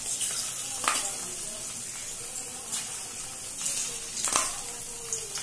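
Spoonfuls of soya-nugget and pasta batter deep-frying in hot oil in a steel kadai, with a steady sizzle. A few sharp clinks of the spoon against the pan come as more batter is dropped in.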